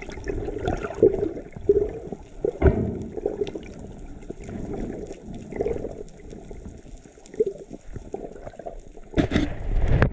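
Muffled water sloshing and gurgling heard through an underwater camera housing, in irregular surges, with a sharper splash about nine seconds in.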